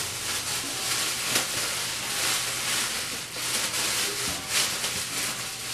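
Thin plastic shower cap crinkling and rustling as it is stretched and pulled down over the head, in uneven swells.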